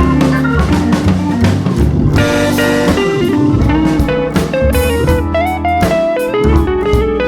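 Background music: a blues-style band with guitar playing a stepping melody over bass and a drum kit beat.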